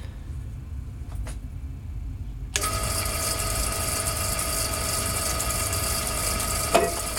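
Homemade milling machine switching on about two and a half seconds in, after a low rumble, and then running steadily with a quiet motor whine and a hiss.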